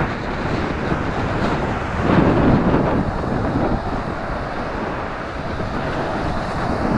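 Wind rushing over the microphone of a camera carried on a moving bicycle, a steady noise that swells briefly about two seconds in.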